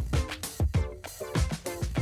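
Background music with a steady beat: low drum thumps about three times a second under pitched instrument notes.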